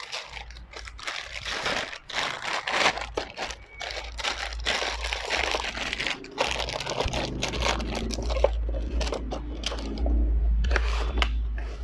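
Clear plastic bag crinkling and rustling in irregular crackles as it is handled around a pistol, with a low rumble underneath that grows stronger near the end.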